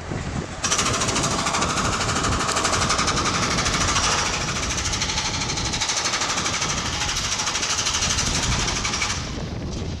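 Demolition breaker hammer pounding concrete in a fast, steady stream of blows. It starts about half a second in and cuts off near the end.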